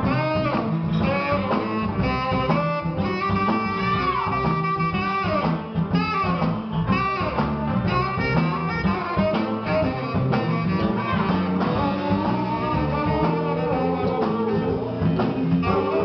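Live soul band playing, with guitar, bass and horns over a steady beat, heard from the audience.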